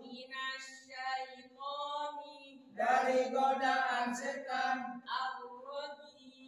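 A group of men reciting Qur'an verses aloud together in a chanting tone. Quieter for the first couple of seconds, the recitation comes in much louder and fuller about three seconds in.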